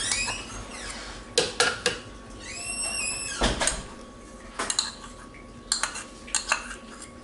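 Metal spoon scraping and knocking yogurt out of a red bowl into a blender jar: a string of sharp clinks and taps, with a short high squeal about three seconds in.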